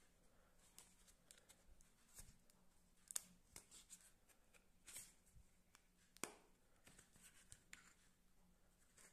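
Faint handling noises as a red rubber protective holster is worked off a Kaiweets KM601 digital multimeter: soft rubbing and scattered small clicks, the sharpest about three and six seconds in.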